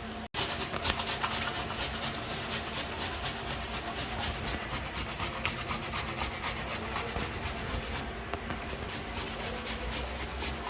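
Tomatoes being grated on a hand grater: rapid, even rasping strokes.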